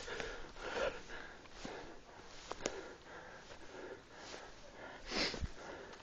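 Heavy, rhythmic breathing of a person walking uphill through tall dry grass, with the grass rustling against legs and camera; one stronger breath or rustle stands out about five seconds in.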